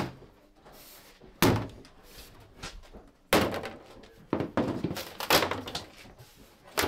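Hammer striking a wooden model-railway baseboard: a few separate heavy knocks, then a quick run of knocks from about four seconds in.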